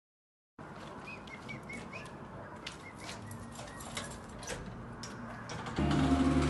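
Outdoor ambience with small bird chirps and a series of sharp clicks and rattles from a door latch and handle being worked. Near the end a louder, steady low hum begins.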